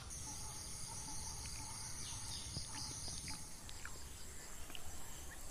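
Steady high-pitched drone of insects, with scattered short bird chirps over it and a low background rumble.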